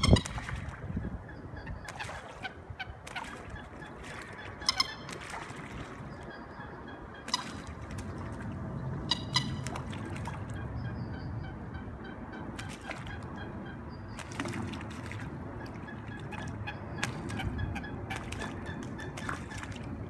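Common moorhens fighting on open water: repeated splashing and wing-flapping, loudest right at the start. A few short pitched bird calls come through about 5 and 9 seconds in.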